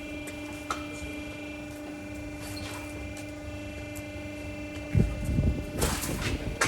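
A steady machine hum, with a heavy knock about five seconds in, followed by scraping and rubbing noises near the end.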